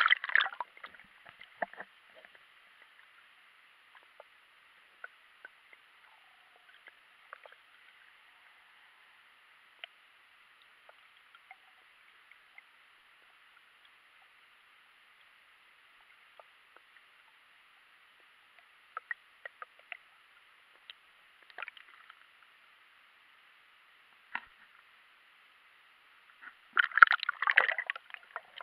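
Underwater sound through a GoPro's waterproof housing: a splash and gurgle as the camera goes under, then a faint, muffled steady hiss with scattered small clicks. A dense cluster of louder knocks comes near the end.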